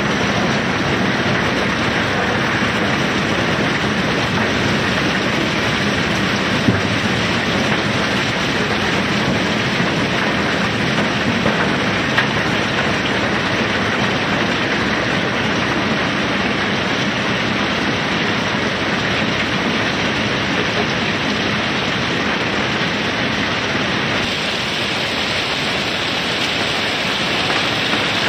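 Steady, loud rushing rattle of river pebbles streaming down through a barge's unloading hopper as the cargo is discharged, with a few sharp knocks about 7 and 12 seconds in.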